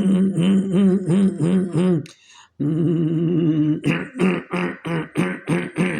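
A man's rhythmic throat vocalisation done in place of coughing to calm an itchy throat: a low voiced tone pulsing about four times a second, a short break, a held tone, then a quicker run of short, breathy pulses.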